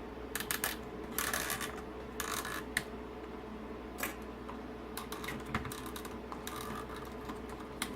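Small irregular plastic clicks and short scrapes from hands working on a Mercedes SLK R171 speedometer cluster and its needles, over a faint steady hum.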